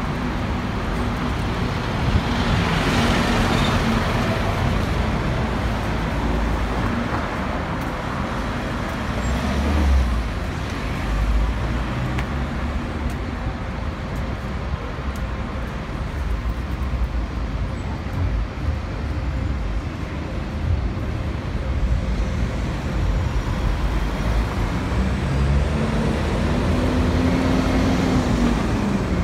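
Steady road traffic on a busy high street, with cars and buses passing close by. Near the end an engine's note rises and then falls.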